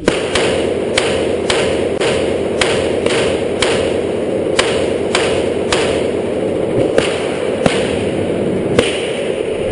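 Rifle fired in a rapid string, about two shots a second, some sixteen shots, stopping near the end.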